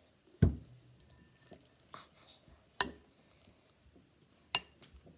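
A spoon knocks and clinks against a mixing bowl of slime as it is stirred. The first knock, about half a second in, is the loudest and heaviest; two sharper clinks follow, with faint small clicks between.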